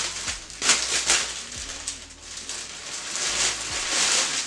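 Clear plastic packaging bag crinkling and rustling as it is handled and pulled open by hand, in several uneven spells.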